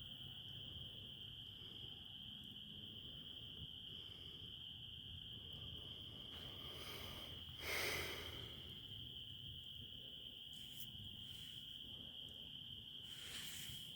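Crickets trilling in a steady chorus on one unbroken high tone. A short rush of noise about eight seconds in is the loudest moment, with a fainter one near the end.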